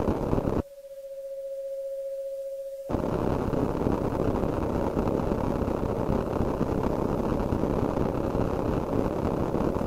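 Electronic sound synthesized in Kyma: a dense, grainy noise texture cuts off suddenly about half a second in, leaving a single steady sine tone that swells slightly. About three seconds in the noise texture returns abruptly and carries on.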